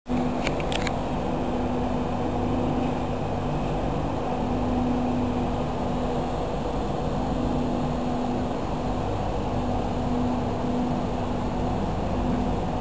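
Passenger train coaches rolling past a platform: a steady rumble with a low hum that comes and goes, and a few faint ticks just after the start.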